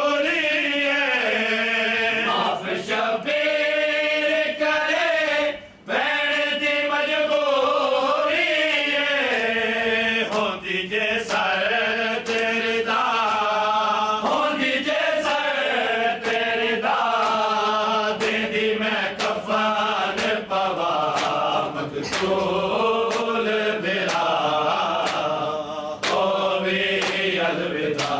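A group of men chanting a Shia mourning lament (noha) in unison with a lead singer, while rhythmic chest-beating (matam) strikes keep time. The strikes come at a steady beat, most distinct in the second half.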